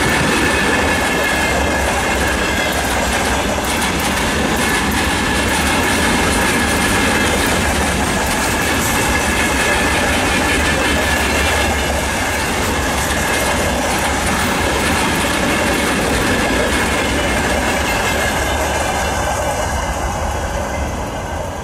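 A freight train's open wagons and tank cars rolling past, the wheels clattering steadily over the rail joints under a steady high-pitched ring. As the tail of the train goes by, the sound starts to fade near the end.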